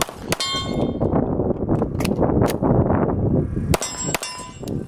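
A pistol fires a string of shots at steel targets, and the steel plates ring after the hits. There are two quick shots at the start, a few more around the middle, and a last pair near the end.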